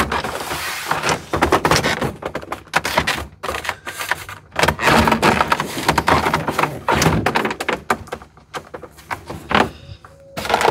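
A molded plastic dash cap being pressed down and shifted by hand over a truck dashboard: many short plastic knocks and clicks, with stretches of rubbing and creaking as it is worked into place.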